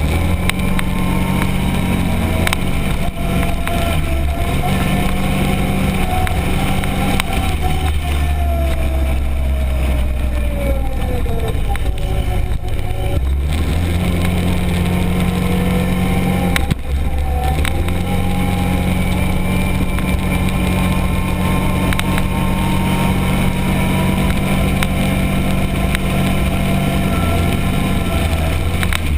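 Arctic Cat Prowler 1000 side-by-side engine running under way, its pitch falling off about a third of the way in and climbing again as the throttle comes back on, with a heavy low rumble underneath.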